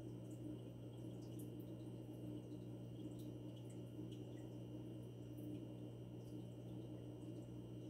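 Aquarium water equipment running: a steady low hum with faint trickling and scattered drips of water.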